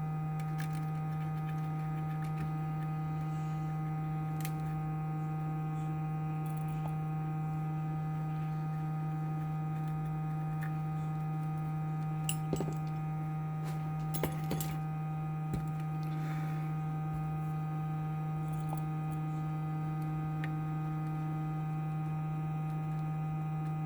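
A steady electrical hum with several steady tones, joined by a few light clicks and clinks a little past the middle.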